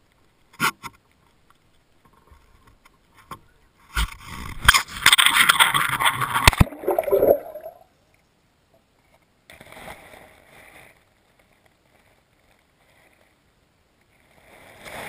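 Water splashing and gurgling against a GoPro's waterproof housing as it is towed on a fishing line through a lake. A few knocks come first, then a few seconds of loud splashing from about four seconds in, before the camera goes under and the sound drops to near silence. A brief faint sloshing comes around ten seconds.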